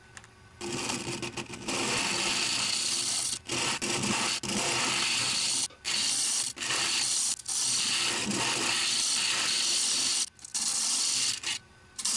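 Wood lathe running while a hand-held turning chisel cuts into the spinning Catalpa wood box blank, making a loud scraping cut. The cut starts about half a second in and breaks off briefly several times as the tool comes off the wood.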